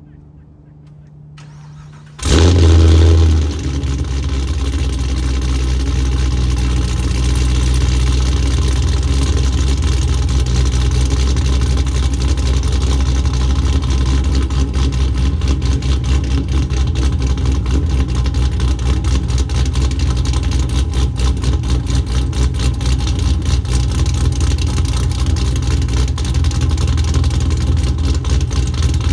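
Supercharged 416-cubic-inch V8 of a 2016 Cadillac CTS-V, breathing through a Billy Boat exhaust, starting about two seconds in with a brief loud flare of revs. It then settles into a steady idle with a slight even pulse.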